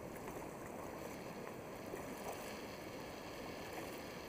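Steady rush of river water inside a cave, an even wash of noise with no distinct strokes or splashes standing out.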